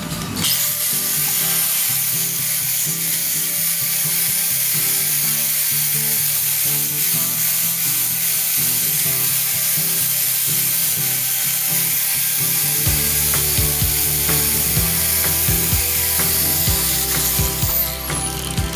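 Angle grinder with a sanding disc running against wood, a steady, loud, hissing grind of abrasive on timber that starts about half a second in.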